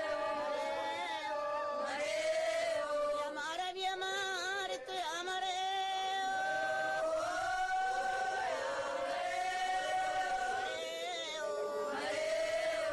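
Several voices singing together in a chant-like melody, with long held notes that bend between phrases.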